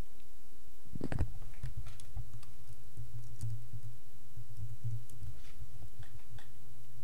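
Computer keyboard typing: scattered key clicks, over a low steady hum that starts about a second in.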